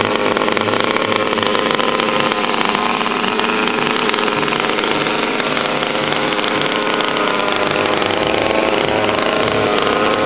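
HPI Baja 5B SS RC buggy's tuned two-stroke gasoline engine idling steadily with the buggy standing still.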